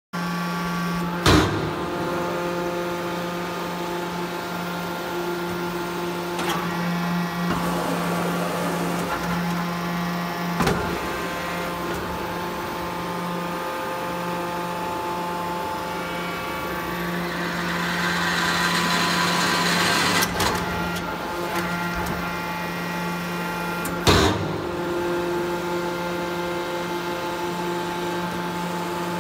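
Hydraulic salt-block press running: the steady hum of its hydraulic pump unit, with a sharp clunk about a second in and another near the end, and a hiss that swells and fades a little past halfway.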